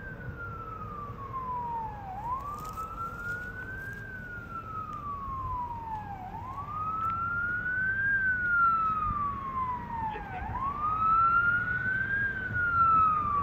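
Fire engine's siren on a slow wail, rising and falling about every four seconds, over the low rumble of the truck. It gets louder as the engine approaches.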